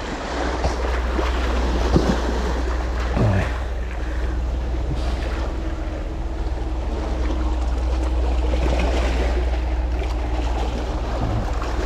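Small sea waves washing and splashing among the boulders at the foot of a seawall, a steady wash, with wind rumbling on the microphone.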